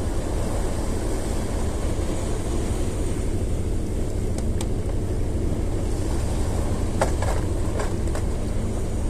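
Steady low rumble of wind and sea surf on the shore. A few brief clicks in the second half as fishing gear is handled.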